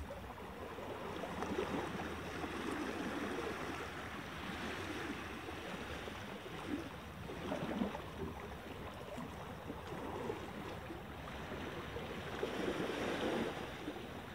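Small waves washing onto a rocky shoreline, swelling and easing every few seconds, with a few faint knocks near the middle.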